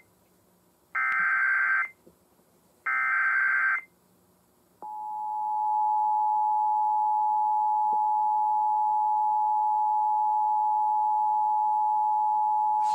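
Emergency Alert System broadcast: two short bursts of SAME header data, each about a second long, a buzzy digital screech. About five seconds in comes the steady EAS two-tone attention signal, which holds to the end and opens a Child Abduction Emergency alert.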